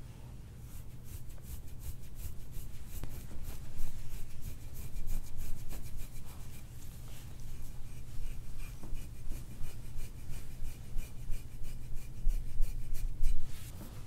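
Metal scraping tool rubbing over oiled skin in quick, repeated strokes (gua sha–style soft-tissue scraping), with a low steady hum underneath.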